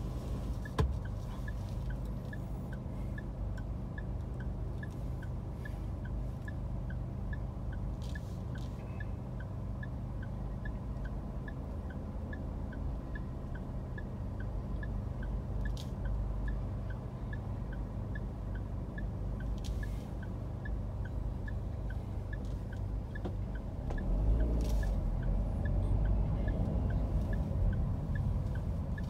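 Car cabin in stop-and-go traffic: a low, steady engine and road rumble, with a turn-signal indicator ticking evenly about twice a second. The rumble grows louder near the end as the car creeps forward.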